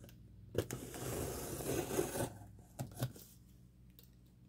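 A mail package being handled and worked open: a scraping rub lasting about two seconds, set off by a sharp knock, then two light knocks.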